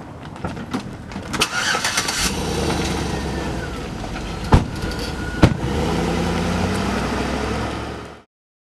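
A car engine starts about two seconds in and runs steadily. Two sharp knocks come about a second apart midway. The sound cuts off abruptly near the end.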